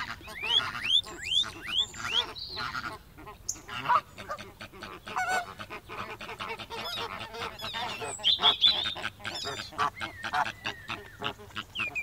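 A flock of white domestic ducks quacking and chattering, many calls overlapping at once, with a few quick rising chirps in the first two seconds.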